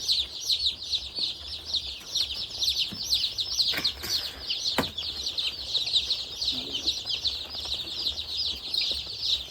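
Large batch of day-old Sasso chicks peeping together in a continuous chorus of high, falling chirps, with a sharp click about halfway through.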